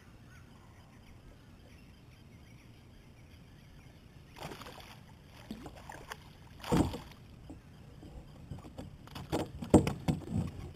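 A hooked bass splashing at the surface as it is fought to the kayak. There is a splash about four seconds in and a louder one just under seven seconds. Near the end comes a quick run of sharp splashes and knocks as the fish thrashes beside the boat.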